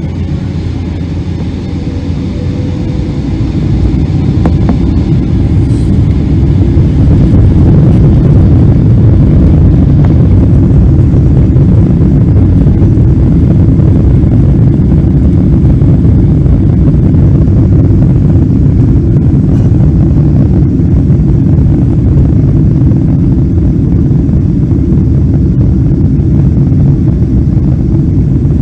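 Boeing 777-200ER's jet engines spooling up to takeoff power, heard inside the passenger cabin: a low rumble that swells over the first several seconds and then holds loud and steady as the airliner rolls.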